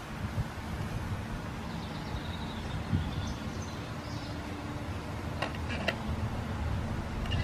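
Steady low outdoor rumble with faint high chirps, and a quick run of sharp clicks about five and a half seconds in as a finger works the crystal set's cat's whisker on the galena crystal.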